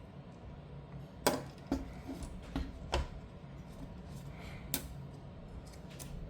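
Scattered light clicks and knocks, about half a dozen spread over several seconds, from a Gigabyte RTX 5090 graphics card and its air cooler being handled and checked during disassembly, over a low steady hum.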